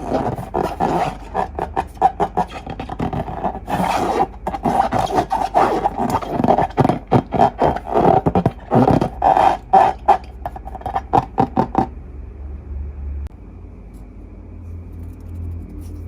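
Slime being squeezed and kneaded, making a rapid, irregular run of wet squelches and air pops that stops about twelve seconds in.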